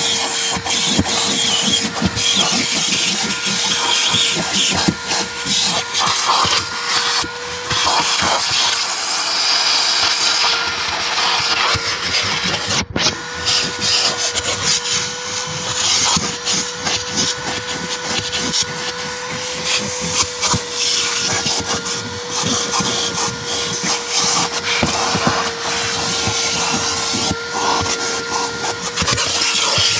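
Vacuum cleaner motor running with a steady hum, its hose and crevice tool sucking and rubbing over car floor carpet in irregular scrapes.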